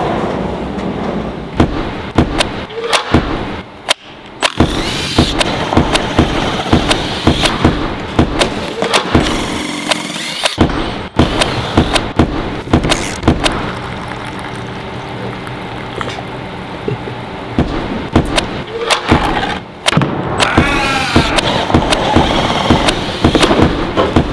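Route-setting work: a cordless drill or impact driver whirring up twice, amid many sharp knocks of plastic climbing holds and volumes being handled and bolted onto the wall.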